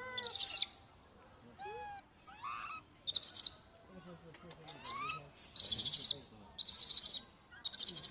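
Animal calls: short, high, buzzy trills repeated about once a second, with fainter arching and gliding whistled notes between them.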